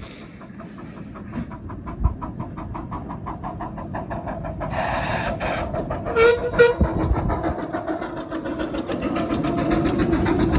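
Two 10¼ in gauge miniature steam locomotives working a train, their exhaust chuffing in a quick, even beat that grows louder as they approach. A burst of steam hiss comes about five seconds in, followed by two short whistle toots.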